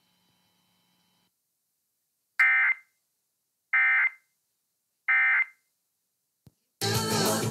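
Emergency Alert System End-of-Message signal: three short bursts of SAME data tones (the "NNNN" code), about a second and a half apart, closing the required monthly test. Music starts abruptly near the end as programming resumes.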